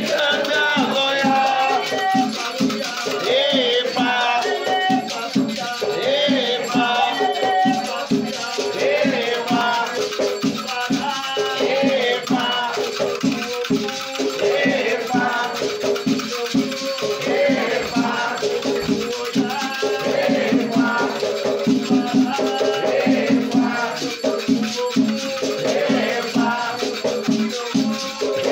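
Afro-Brazilian batuque ritual music: sung chanting over rattles shaken in a continuous rhythm.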